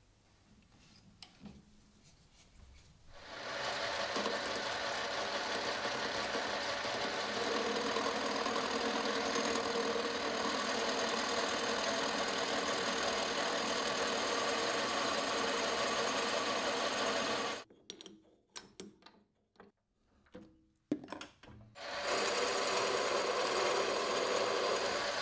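Metal lathe turning a square ebony blank with a carbide insert tool: a steady running and cutting noise starts about three seconds in. It breaks off for a few seconds near the end, with scattered clicks, then resumes.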